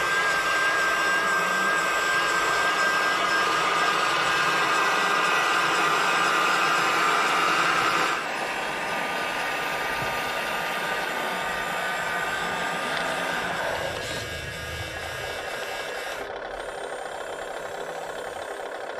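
Steady whine of a radio-controlled model truck's electric motors and hydraulic pump as its arm-mounted brush attachment works against a wall. The whine drops in level about eight seconds in, and drops slightly again later.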